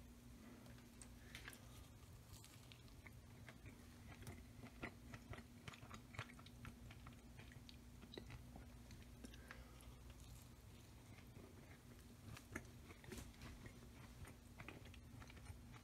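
Someone biting and chewing a slice of flaky pie-crust blueberry galette: quiet, irregular crunches and mouth clicks over a faint steady hum.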